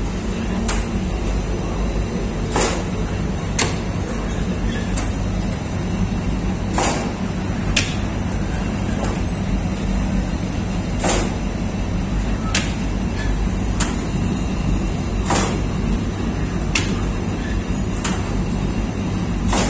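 Lavash bakery machinery, a roller dough sheeter feeding a conveyor oven, running with a steady low hum. Sharp clicks come every second or two.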